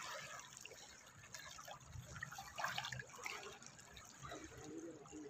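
Faint small waves lapping and trickling at a pebbly reservoir shoreline, in irregular little splashes.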